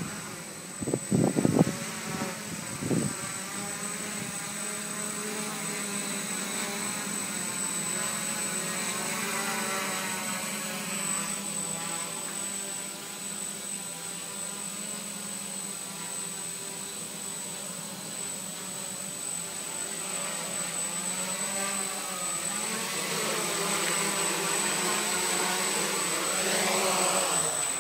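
Electric quadcopter's brushless motors and propellers buzzing steadily in flight, the pitch drifting up and down with throttle. Near the end the buzz rises, and then it cuts off suddenly as the motors stop.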